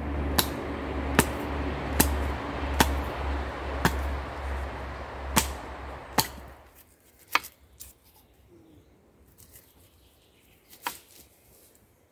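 A wooden baton striking down on a log: sharp wooden knocks about one a second for the first six seconds, then a few more spaced out. A steady rushing noise runs under the first knocks and stops suddenly after about six and a half seconds.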